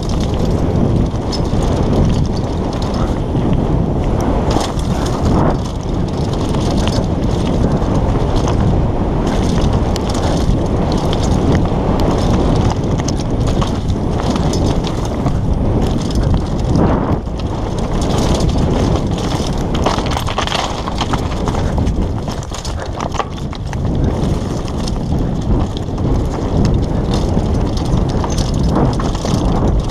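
Downhill mountain bike ridden fast over loose rocks: a continuous rush of wind on the microphone, with tyres crunching over stones and the bike rattling in many small knocks and clatters.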